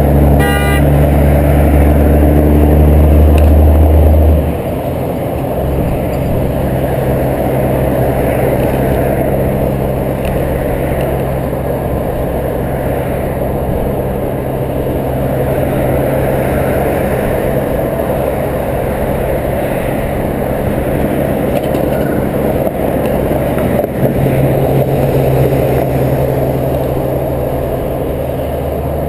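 Car engine and road noise heard from inside a moving car's cabin, a steady drone with tyre rumble. A loud low hum drops off abruptly about four seconds in, and the engine note runs on steadily after it.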